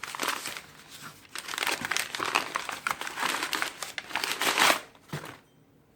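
Wrapping crumpling and crinkling as individually wrapped tools are unwrapped by hand, in irregular bursts that stop about five seconds in.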